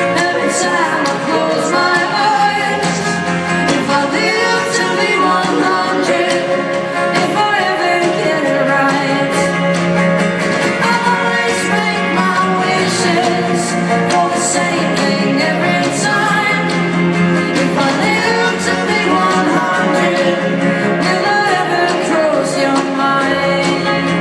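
Live band music with a woman singing over guitar and steady percussion, heard as recorded from the audience in a large hall.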